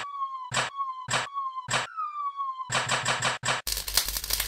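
Cartoon assembly sound effects. A falling electronic tone repeats about every half second, each one cut by a sharp clank. Nearly three seconds in, the clanks come in a quick run, then a dense hissing shimmer takes over.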